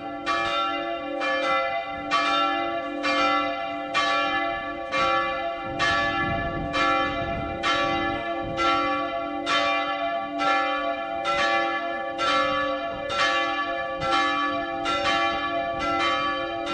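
Historic church bells, the same ones rung 150 years ago, ringing in the old bell tower. Strokes come in a steady rhythm about twice a second over a humming tone that hangs on between them.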